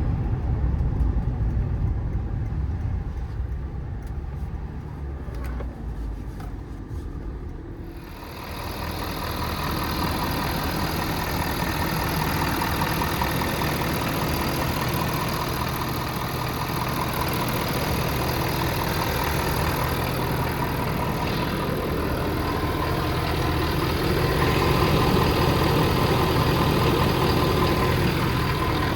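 Ford 6.7 L Power Stroke V8 diesel engine running, at first a low rumble that fades. About eight seconds in the sound suddenly opens up into a louder, steady hiss over the engine, which then holds steady at idle.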